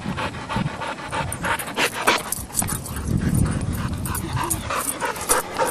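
Dogs at play, making a quick series of short, sharp vocal sounds, several a second.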